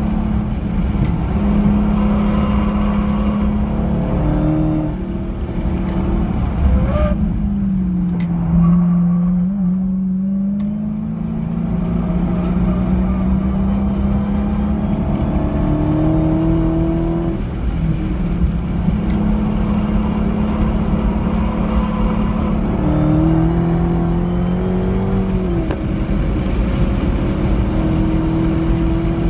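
Dodge Charger Hellcat's supercharged 6.2-litre V8 heard from inside the cabin at track pace, running hard under throttle. Its note climbs and falls with the revs, dipping and quietening about a third of the way in as it slows for a corner, then pulling up again, with further dips and climbs later on.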